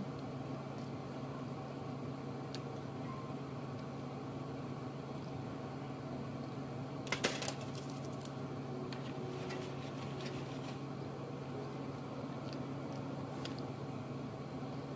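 A steady low hum, with a short cluster of sharp crackling clicks about halfway through and faint scattered clicks from handling and eating bread.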